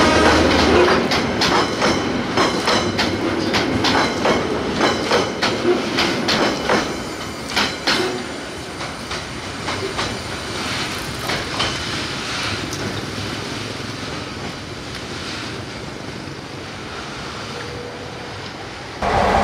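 Freight train wagons clattering over the rail joints as they roll past, with quick clusters of clacks that thin out and fade into a receding rumble.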